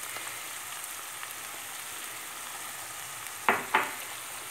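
Chopped onions and green lentils sizzling steadily in hot olive oil in a frying pan, with two short knocks a quarter of a second apart about three and a half seconds in.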